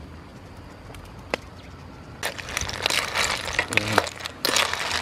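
Snail shells clattering and scraping against each other and the metal wok as a spatula stirs them, a dense run of clicks and rattles starting about two seconds in. Before that, a low steady hiss of the steaming pan with a single click.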